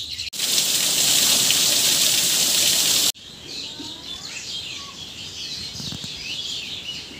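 A loud, even hiss for about the first three seconds, starting and stopping abruptly, then many birds chirping with short, overlapping calls.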